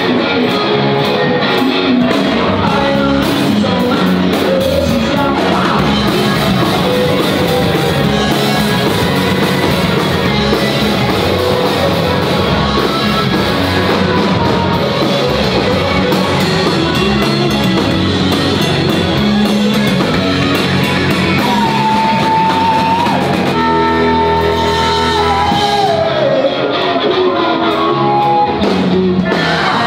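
Live rock band playing an original song in a large hall: singing over electric guitar, drums and keyboard, loud and steady throughout.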